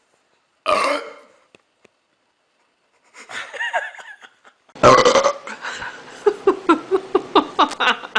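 A person burping loudly: a short burp about a second in, then a louder, longer one near five seconds in that runs into a quick series of short rhythmic vocal sounds.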